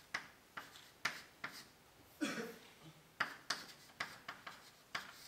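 Chalk tapping and scraping on a blackboard as words are written: a string of short, sharp clicks, about two or three a second.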